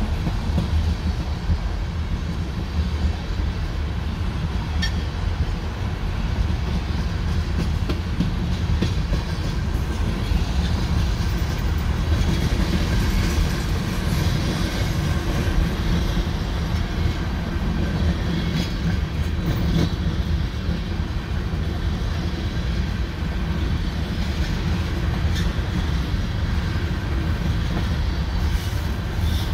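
Freight train tank cars rolling steadily past at close range: a constant low rumble with the wheels clicking over the rails.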